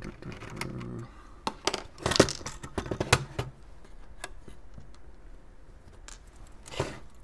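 Small clicks and light clatters of screws, a precision screwdriver and modem parts being handled and put down by gloved hands. The clicks are scattered and the sharpest comes about two seconds in.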